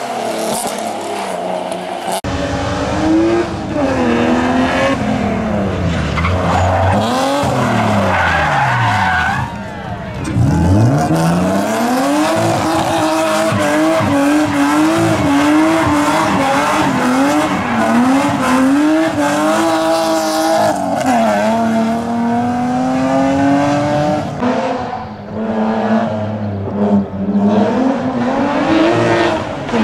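BMW E30 3 Series rally car driven hard, its engine revving up and dropping back many times through gear changes. Tyres squeal as it slides through corners.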